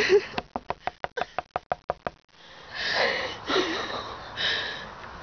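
Rapid tapping on a car's side window glass: about a dozen quick, sharp knocks in under two seconds, followed by breathy, stifled sounds.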